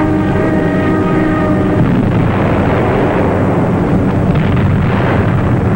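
Aircraft engines droning steadily, joined about two seconds in by a dense spell of explosions and gunfire.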